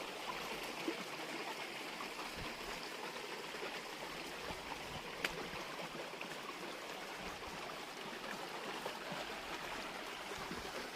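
Steady rush of water from a stream's small waterfall, with a single sharp click about five seconds in.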